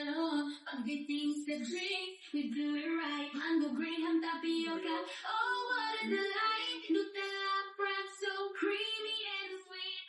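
A high-pitched voice singing a melody, with long held notes.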